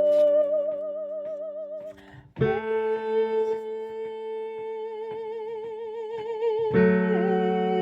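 A singer holding long, wavering vibrato notes of the baritone line an octave higher, over sustained accompaniment chords. The chords change about two and a half seconds in and again near the end.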